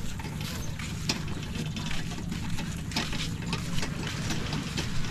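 An engine running steadily with a low hum, with frequent small clicks and knocks over it.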